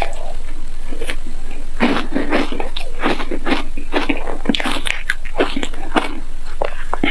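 Close-miked chewing and crunching of a mouthful of green-coated frozen foam ice bar. The crunches are sparse at first, then come thick and fast from about two seconds in.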